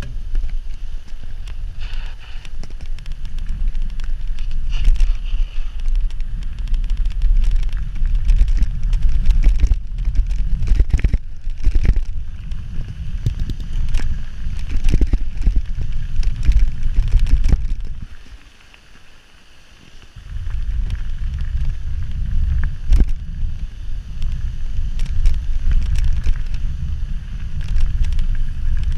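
Wind buffeting the microphone of a mountain bike riding fast down a gravel path, with constant clicking and rattling from the bike and the tyres on the gravel. The wind rumble drops away for about two seconds roughly two-thirds of the way through, then returns.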